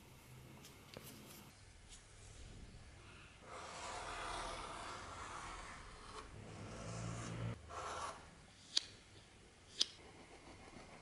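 Utility knife blade drawn along a steel ruler, cutting a strip of leather with a scratchy scraping for a few seconds, then a shorter scrape, followed by two sharp clicks about a second apart.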